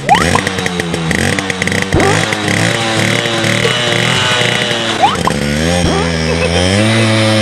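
Small step-through motorcycle engine revving hard in first gear while towing a load on a rope. The pitch wavers up and down, then climbs and holds higher near the end.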